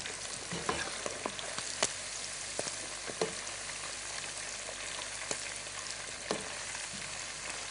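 Mushrooms frying in hot oil in a pot, sizzling steadily, while a spoon stirs them and clicks against the pot now and then.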